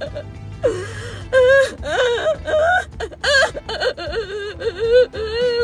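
A woman crying hard, sobbing and wailing in a high, wavering voice.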